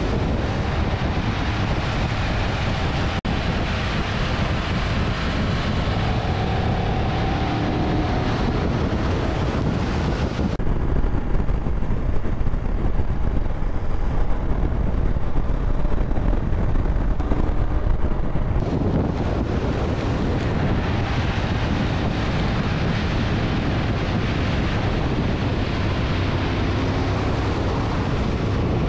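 Wind blowing over the microphone with the steady low rumble of a vehicle travelling along a road. For about eight seconds in the middle the hiss goes dull and the rumble gets a little louder.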